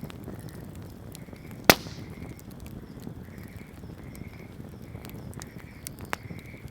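Wood campfire crackling with a steady low burning noise and scattered small snaps, and one loud sharp pop about a second and a half in, with a smaller pop near the end.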